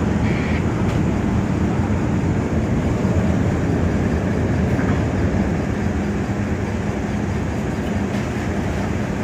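Ship's engine running with a steady low rumble and a faint hum.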